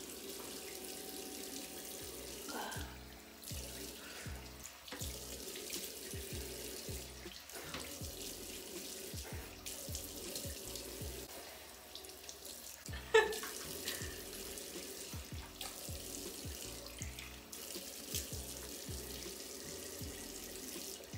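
Bathroom sink tap running while water is splashed onto the face to rinse off soap, over background music with a steady beat. One sharp knock stands out about two-thirds of the way through.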